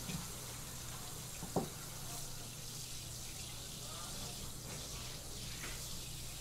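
Water spraying from a sink faucet's spray head onto a plastic cutting board as it is rinsed off, a steady hiss. One sharp knock sounds about a second and a half in.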